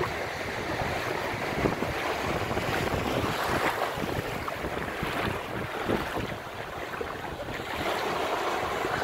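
Small waves breaking and washing over shallow water on a sandy beach, a steady surf hiss, with some wind on the microphone.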